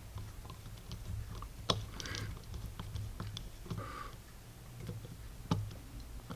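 Scattered light clicks and ticks of a screwdriver working a small screw into a revolver's steel grip frame, with two sharper clicks about two seconds and five and a half seconds in, over a steady low hum.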